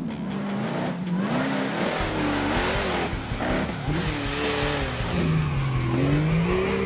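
Off-road 4x4 truck engines revving hard, their pitch rising and falling again and again as the trucks are driven across rough ground.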